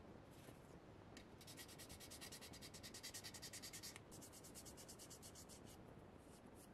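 Fine sandpaper rubbed quickly back and forth over a small painted plastic model-kit part, a light scratchy rasp of about seven or eight strokes a second. It comes in two runs with a brief break about four seconds in.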